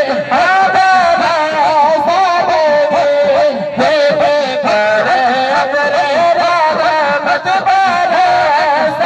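Naat recitation: a solo voice singing a devotional Urdu hymn to the Prophet in long, ornamented phrases that waver and glide in pitch.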